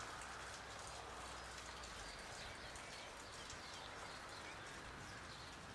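Faint birdsong, short chirps over a steady low hiss.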